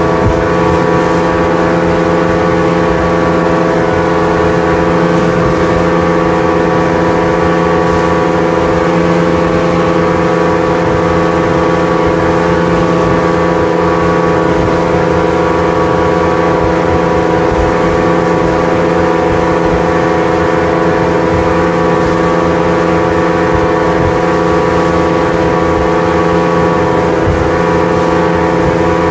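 Speedboat running at steady cruising speed: a constant, loud engine drone holding one pitch, over the rushing hiss of spray and wake off the hull.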